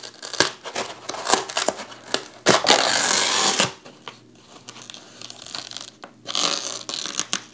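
Masking tape being peeled off the surface of Kaizen foam: a run of short ripping pulls, with two longer, louder tears, one about two and a half seconds in and one near the end.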